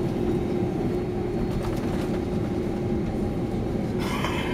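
Steady cabin rumble inside a Boeing 767-300ER on the ground before takeoff, with a constant hum running through it. About four seconds in, a brief higher-pitched sound rises above the rumble for about half a second.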